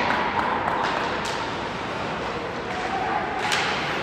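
Ice hockey play in a rink: a steady hiss of skates on the ice and arena noise, with a few sharp stick-and-puck clacks, the loudest about three and a half seconds in.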